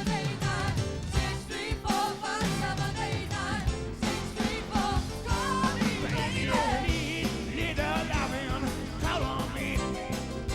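Live soul band playing a song with a lead vocal over a steady drum beat and full band.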